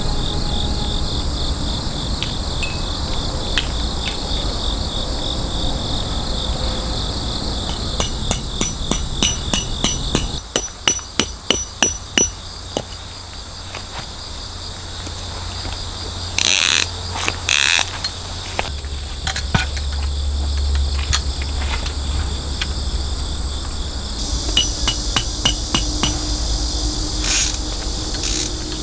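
Crickets chirring steadily and high, with two runs of sharp knocks, about three a second, the first about a third of the way in and the second near the end, and two short bursts of noise in between.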